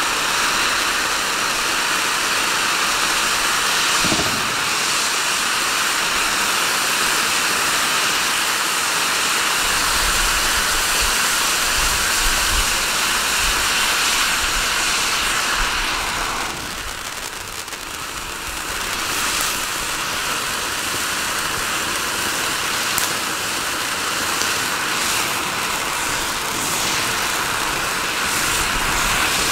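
Klasek 1 kg Color Vulkan fireworks fountain burning with a steady hiss of spraying sparks, easing briefly about two-thirds of the way through. A few sharp crackles come in the second half.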